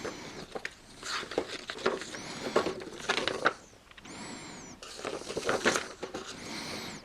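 Plastic bags and kit parts being handled, rustling and crinkling in irregular bursts with a few light clicks.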